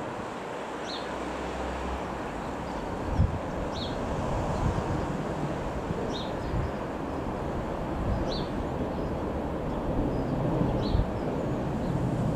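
Wind buffeting the microphone, with gusty low rumbles. A short high chirp repeats about every two seconds.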